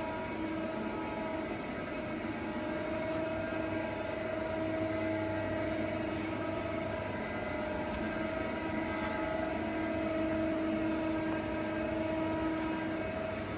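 Mazak SQT CNC lathe running: a steady machine hum with a pitched whine that wavers slightly in pitch.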